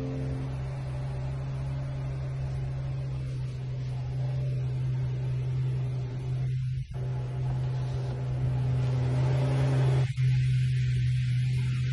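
A steady low hum, with two brief dropouts, about seven and about ten seconds in.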